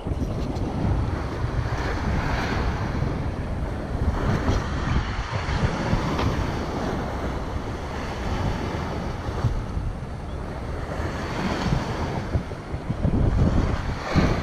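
Wind buffeting the microphone while cycling: a steady low rumble that swells and eases in gusts.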